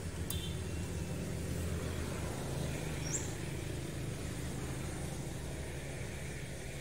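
Steady low rumble of road traffic passing nearby, with a single short, high rising chirp about three seconds in.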